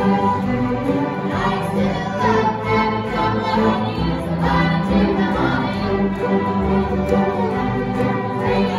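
An acoustic string band of fiddle, upright bass and plucked strings playing a country-style song together with a string orchestra of violins and cellos, with women's voices singing together over it.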